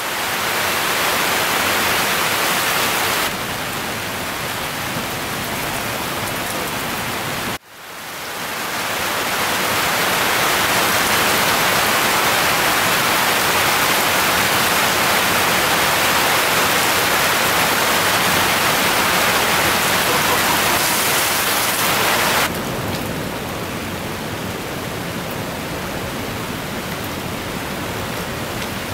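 Steady hiss and roar of breaking surf and whitewater. It drops abruptly to a quieter level about three seconds in, cuts out for an instant at about seven and a half seconds and swells back louder, then drops again a little after twenty-two seconds.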